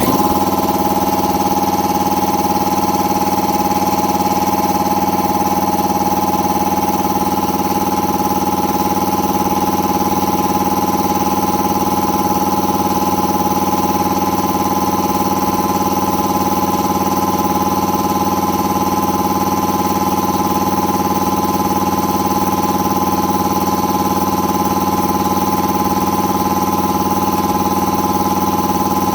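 Electric air compressor with a new pump unit switched on and running steadily, building pressure in the tank, a steady machine drone that starts abruptly.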